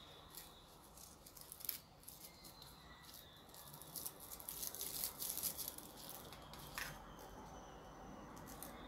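Faint crackling rustle of dried corn husk and cotton fabric being handled as a strip is knotted around it, with a few sharp clicks. Small scissors come in near the end.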